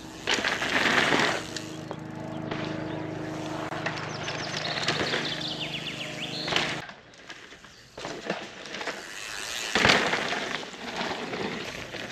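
Mountain bike tyres rolling and crunching over a loose gravel and dirt jump trail, swelling in surges as the rider passes close by. A steady hum sits under it for a few seconds in the middle.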